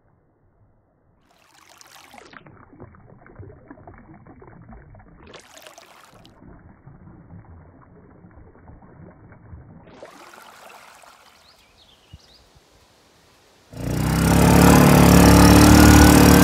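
A small stream trickling over rocks, faint and muffled, with three whooshing sweeps that rise into the treble and fall back. About fourteen seconds in, loud electronic music comes in.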